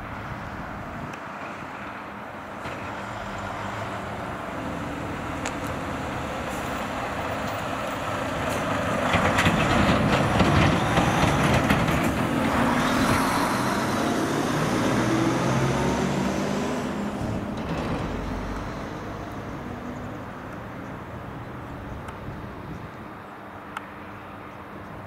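A road vehicle passing by: its engine and tyre noise build up, peak about ten seconds in, then fade away over the next several seconds.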